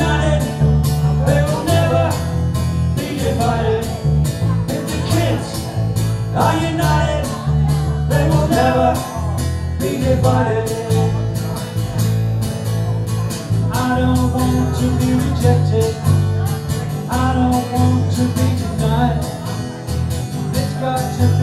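Live acoustic guitar strummed in a steady rhythm over electric bass guitar, with a man singing a song into a microphone.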